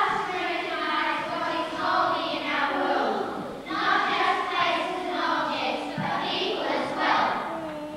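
Children singing together as a group, with long held notes.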